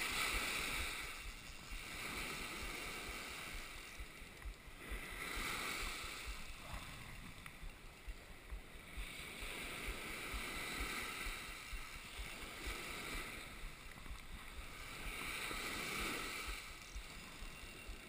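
Small sea waves breaking and washing up the sand, the surf swelling about every five seconds, with a low wind rumble on the microphone.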